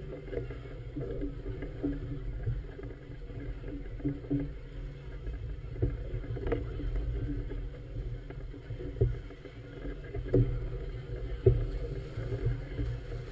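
Muffled low rumble of wind and water around a moored floating clubhouse, heard through a GoPro's waterproof housing, with several dull knocks in the second half.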